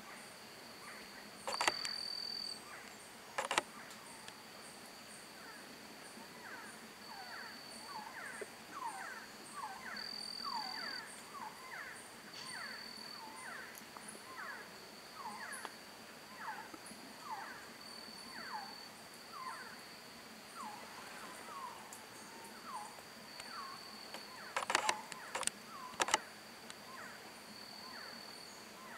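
Several resplendent quetzals singing in breeding season: many short, falling whistled notes, overlapping one another, most of them between about six and twenty-two seconds in, over a steady high insect buzz. A few loud, sharp cracks come a couple of seconds in and again near the end.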